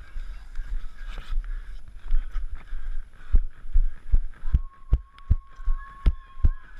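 A runner's footfalls jolting a body-worn camera: even low thumps, about two and a half a second, starting about three seconds in, after irregular knocks and scuffing as the runner comes down off a climbing obstacle. A thin steady tone sounds for about two seconds in the middle.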